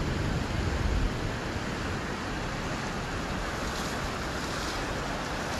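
Surf washing on a beach: a steady rushing noise, with wind buffeting the microphone as a low rumble during about the first second.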